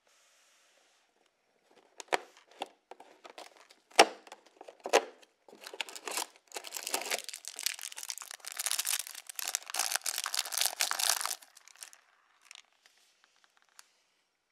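A few sharp clicks and crackles as a cardboard advent calendar door is pushed open, then a small clear plastic LEGO parts bag crinkling and tearing open for several seconds. A few faint clicks of minifigure pieces follow near the end.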